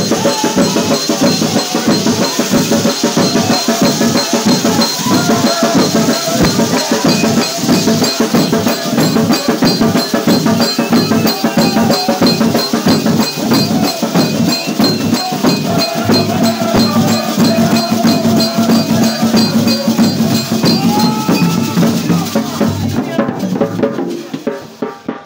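A group singing over a fast, steady percussion beat of drums and shakers or rattles. The music drops off near the end.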